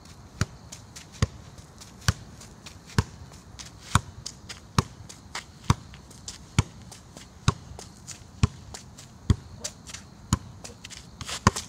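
A football juggled on the outside of the left foot: about a dozen sharp kicks in a steady rhythm, roughly one a second, with lighter taps between them. A rough scuffing sound comes near the end, as the run of kicks stops.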